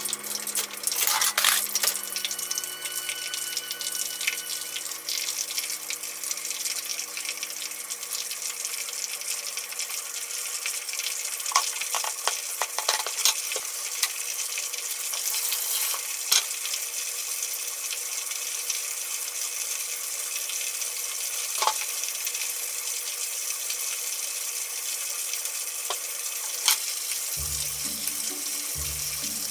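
Hot oil sizzling steadily as food deep-fries in a pot, with a few sharp clicks of utensils.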